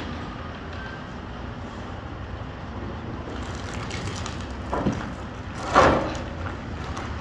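Semi-truck diesel engine running at low revs as the tractor-trailer backs up, a steady low rumble. Two brief sharp sounds come about a second apart past the middle, the second one the loudest.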